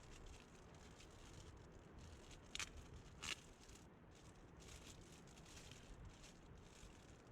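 Near silence with faint scattered rustling, and two short, crisp rustles, about two and a half and three and a quarter seconds in.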